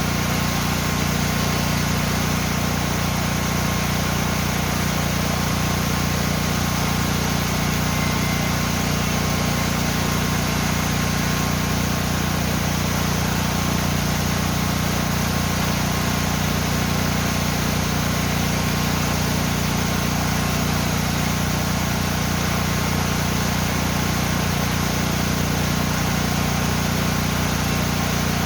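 Waterfall pouring into a mountain-stream pool: a loud, steady rush of falling water with a deep low rumble underneath.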